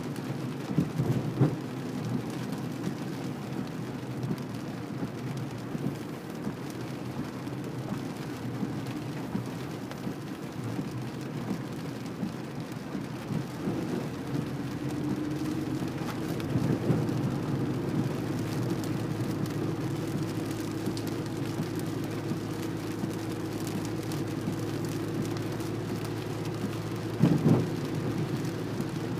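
Car interior noise while driving in the rain: a steady rumble of engine and tyres on wet road with the hiss of rain on the car. A steady hum comes in about halfway, and there are a few brief knocks, one near the end.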